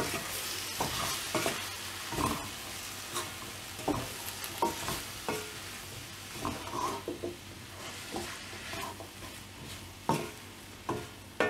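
Mushrooms and potato cubes sizzling in oil in a wok while a wooden spatula stir-fries them, scraping and knocking against the pan at irregular intervals.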